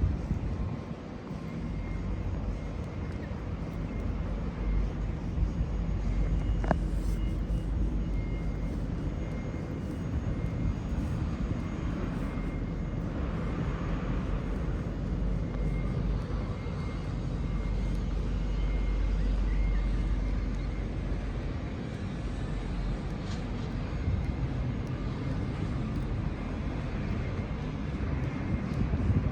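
A steady low rumble of outdoor city ambience, with no clear single event.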